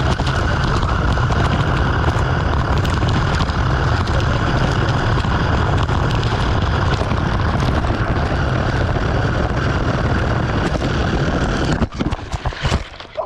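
An RC car racing, heard from a camera riding on it: a steady loud rush of motor, tyre and wind noise on the microphone. It cuts out suddenly about twelve seconds in, followed by a few sharp knocks.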